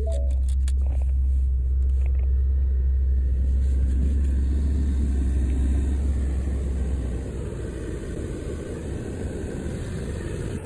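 Ford F-350 Super Duty pickup's engine running, heard inside the cab as a steady deep hum and rumble, with a few clicks in the first second. About seven seconds in, the deep hum fades and a quieter, rougher rumble is left.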